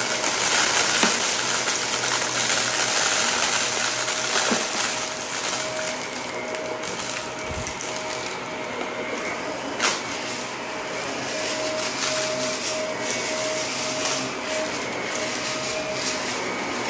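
Shark Navigator upright vacuum running on carpet, its brushroll crunching and crackling through scattered small debris over a steady motor whine. A sharp click about ten seconds in.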